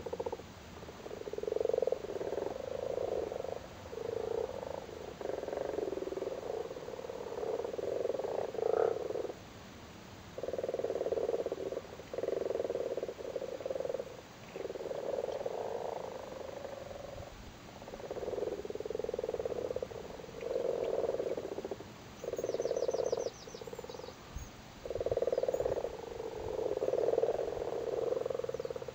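Common frogs calling in a spawning chorus: a low purring croak in runs of one to three seconds with short pauses between.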